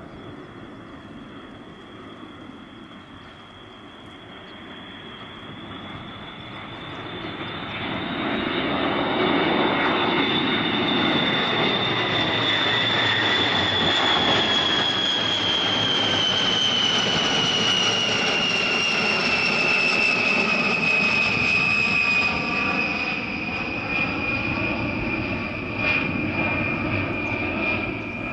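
Boeing B-52H Stratofortress's eight TF33 turbofan engines growing loud as the bomber flies a low pass overhead. A high steady whine rides over the engine noise and falls in pitch as the aircraft goes by and climbs away.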